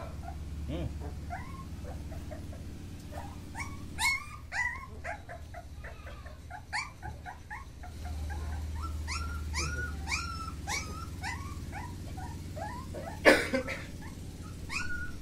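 Mudhol hound puppies whimpering: many short, high-pitched whines that rise in pitch, coming in quick runs from a few seconds in. There is one louder sharp sound near the end.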